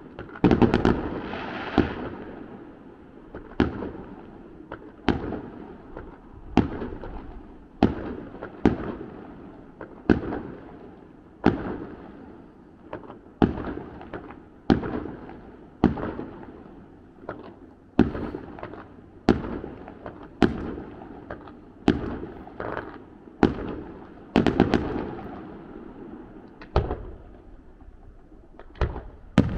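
Fireworks display: aerial shells bursting one after another, roughly a bang a second, each sharp bang trailing off in an echo.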